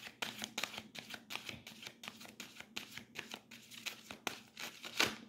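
Angel oracle cards being shuffled by hand: a quick, irregular run of papery flicks and slaps, about four or five a second, with a sharper snap about five seconds in as a card pops out of the deck.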